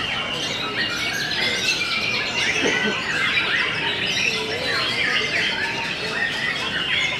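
Many caged white-rumped shamas (murai batu) singing at once: a dense, unbroken chorus of overlapping whistles, trills and chirps.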